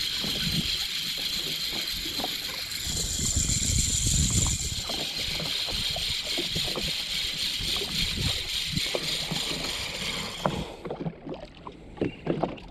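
Jet ski engine running at trolling speed, a steady high whine over a low rumble, with water slapping the hull. A little before the end the whine cuts off, leaving scattered water knocks.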